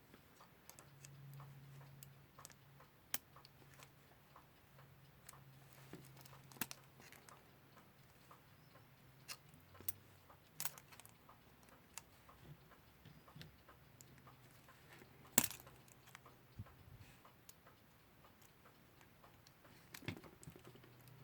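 Faint, irregular clicks and taps of pliers working on a small alarm clock movement, with one sharper click about fifteen seconds in. A faint low hum runs underneath.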